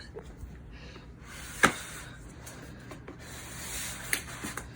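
A few light knocks and rubbing sounds, with one sharper knock about a second and a half in and another near the end.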